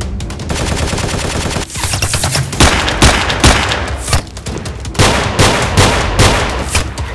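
Gunfire sound effects dubbed over toy-blaster shooting: a fast stream of automatic fire, then from about two seconds in louder single shots and short bursts roughly every half second.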